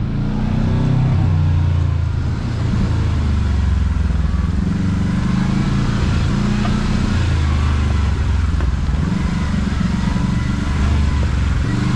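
Kawasaki KRX side-by-side's engine running as it drives a rough trail, heard from on board. The engine eases off briefly about two seconds in, then holds steady.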